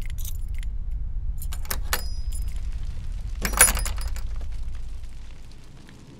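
A bunch of keys jangling and clinking in the hand in several short bursts, the loudest about three and a half seconds in. A low rumbling drone runs underneath and fades away near the end.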